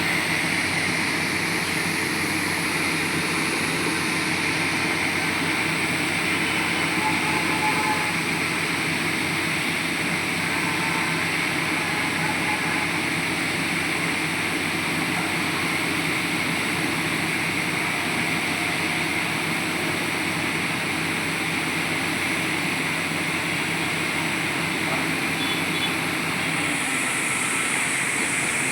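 Heavy construction drilling rig's engine running steadily, with a shift in the machine noise near the end.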